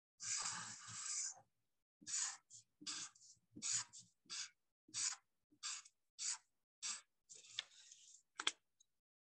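Black marker drawing on paper: one longer stroke of about a second, then a quick run of about ten short strokes, roughly one every half second, as short lines are added one after another.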